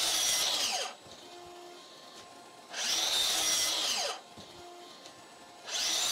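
DeWalt DCS781 60V Flexvolt 12-inch sliding miter saw run in short bursts about three seconds apart, each about a second and a half long: one running in at the start, one in the middle, and one starting near the end. In each burst the brushless motor's whine rises as the blade spins up and cuts wood, then falls off fast as the regenerative brake stops the blade.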